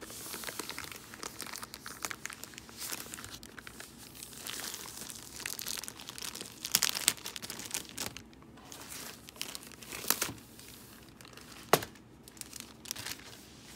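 Clear plastic wrap crinkling and crackling as it is handled and pulled off a rolled diamond-painting canvas: an irregular run of crackles with a few sharper, louder snaps.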